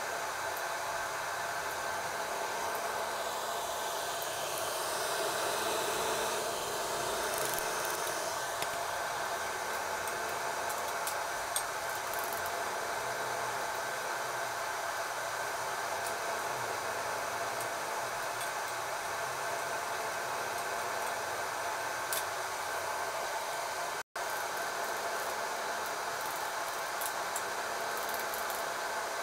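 Hot oil sizzling steadily as kembang goyang batter fries on its flower-shaped mold. The sizzle grows louder and brighter a few seconds in and settles back after about five seconds, with a few light ticks.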